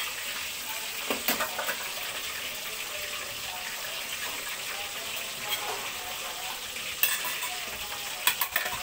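Catfish deep-frying in hot oil in a lidded wok: a steady sizzle, broken by sharp pops of spattering oil about a second in, about seven seconds in and twice near the end.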